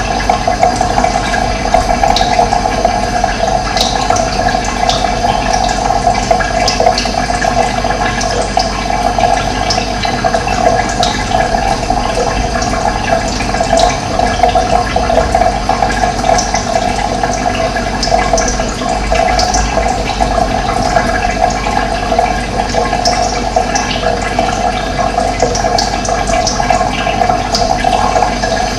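Running water flowing steadily, with short bird chirps scattered throughout.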